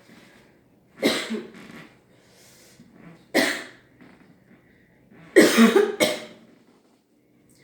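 A person coughing hard in three separate fits, about a second in, near the middle, and a longer double one toward the end.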